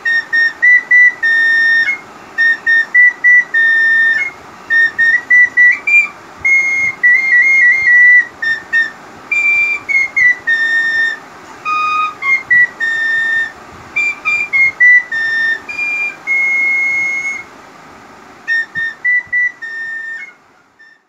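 A melody played on a small handheld wind instrument: single, clear, high-pitched notes, some held and some short, with brief breaks between them. The playing stops shortly before the end, and a steady hiss runs underneath.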